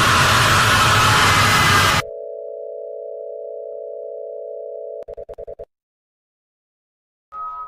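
Loud static hiss that cuts off abruptly about two seconds in, giving way to a steady telephone dial tone. Around five seconds in the tone breaks into a quick string of short beeps, then silence, and a synth tone starts near the end.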